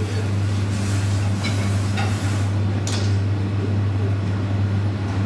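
Steady low hum of kitchen machinery with a few sharp clinks of dishes and glassware, about one and a half, two and three seconds in.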